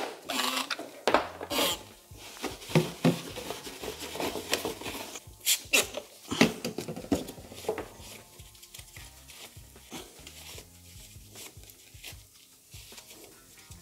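Handling noises of cleaning a plastic parking-sensor bracket: a cloth rustling, a few short hisses from a trigger spray bottle about halfway through, then quieter rubbing as the bracket is wiped with the cloth.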